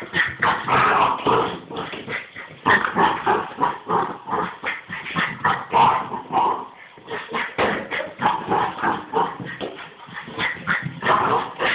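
Puppy barking and yipping over and over in short, quick bursts: excited play barking.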